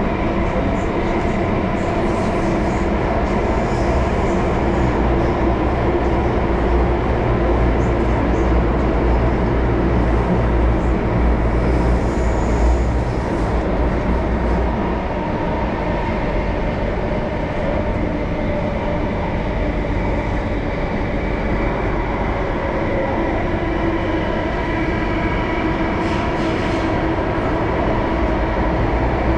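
Singapore MRT train in motion heard from inside the carriage: a steady deep rumble of wheels and running gear with a constant motor whine over it.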